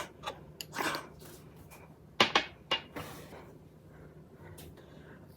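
Scattered clicks, knocks and short scrapes of a whipped-cream container being handled and worked at while it is being opened, with a cluster of sharper clicks a little past two seconds in.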